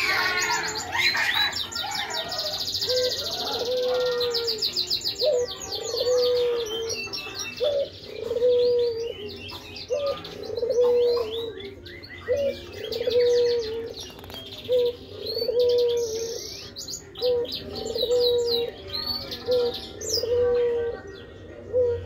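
Hybrid siskin (mule) finch singing in rapid bursts of high twittering trills and chirps, densest in the first few seconds. A dove coos in the background, a short low note about once a second from about four seconds in.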